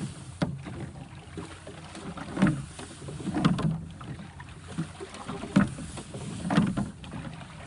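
Oars working an ocean rowing boat: a knock with a splash at each stroke, repeating about every one to two seconds, over the steady wash of the water.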